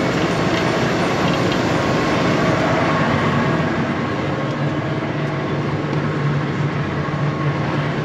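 John Deere combine harvester running while cutting soybeans: a steady, loud mix of engine and threshing machinery noise. A steady low hum comes in about halfway through.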